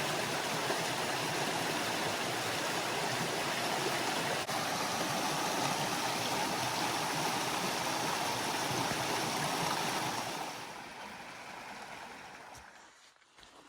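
Small mountain stream flowing steadily, a constant rush of water that fades out near the end.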